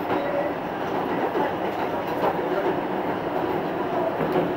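R160A subway train running between stations, heard from inside the car: a steady rumble of wheels on rail, with a few faint clicks as the wheels cross rail joints.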